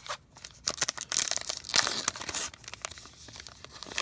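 A 2016 Topps Allen & Ginter trading-card pack wrapper being torn open and crinkled by hand: a dense crackling tear lasting about two seconds, followed by lighter crinkles.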